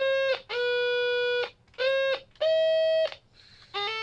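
Electronic organ notes from a 4011 quad NAND gate oscillator circuit, played on push-button keys through the small speaker of a 300-in-1 electronics kit. There are five separate steady tones, each held for under a second with short gaps between them. The fourth is a little higher and the last one starts near the end.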